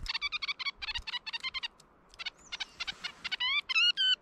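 Female red-breasted nuthatch chattering: quick strings of short nasal, tin-horn notes, a brief pause about halfway, then longer drawn-out nasal 'yank' calls near the end. This is the R2-D2-like breeding-season chatter of a hormonal female.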